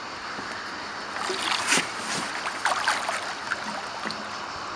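Water splashing against the side of a boat as a large wels catfish thrashes at the surface while being landed by hand, with two flurries of sharper splashes, about a second in and past the middle.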